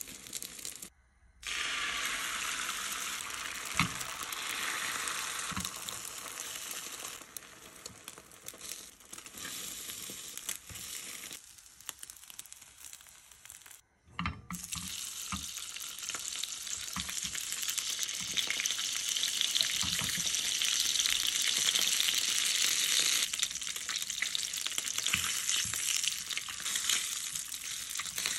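Oil sizzling in a rectangular nonstick egg pan, first under a rolled egg omelette, then under slices of canned ham laid in about halfway through, after which the sizzle is louder and fuller. A few light knocks of chopsticks against the pan.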